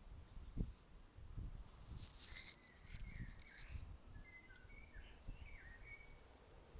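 Faint natural outdoor ambience: a bird giving a string of short chirps from about two seconds in until near the end, over irregular low rumbles.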